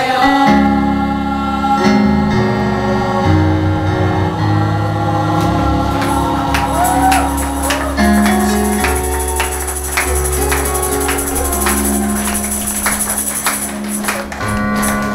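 Gospel worship music: held chords that change every second or two, with voices singing and a tambourine coming in about halfway through.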